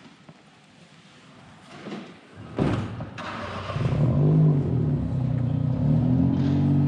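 A car engine starting with a sudden burst about two and a half seconds in. Its note swells and wavers as it is revved, then settles into a steady, loud running note.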